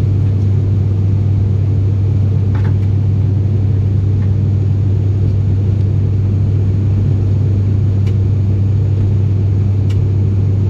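Steady, loud low drone of an ATR 72-600's Pratt & Whitney PW127M turboprop engine and propeller at climb power, heard inside the cabin from a window seat beside the engine. A strong, unchanging hum sits under a rushing noise.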